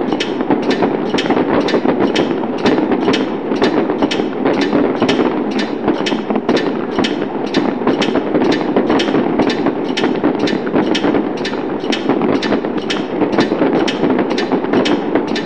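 Firework sound effect: a dense, steady crackle and rumble with sharp pops at an even pace of about two a second.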